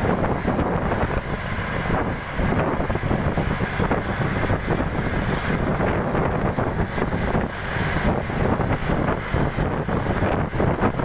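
Wind rushing and buffeting over a phone microphone held at the window of a moving bus, over the steady rumble of the bus's engine and tyres on the road.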